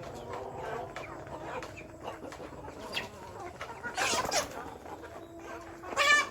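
Chickens clucking, with many short calls overlapping. A louder squawk comes about four seconds in, and a loud, pitched call near the end is the loudest sound.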